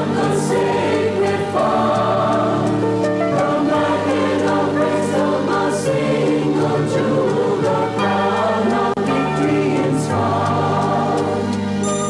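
A congregation singing a hymn together, with sustained low accompaniment held under the voices.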